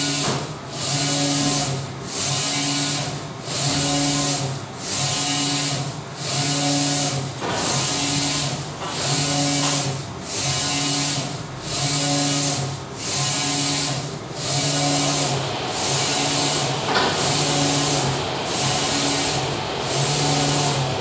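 Wide-format flex banner printer running, its print-head carriage shuttling back and forth across the media: a motor whine on each pass with a short dip at each reversal, about once a second.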